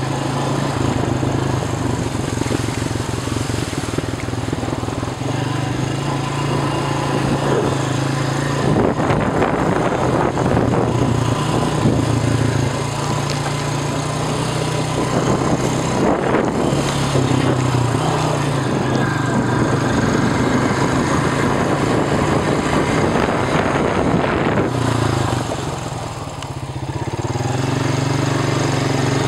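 ATV engine running under way, its note rising and falling with the throttle; it eases off about 26 seconds in, then picks up again near the end.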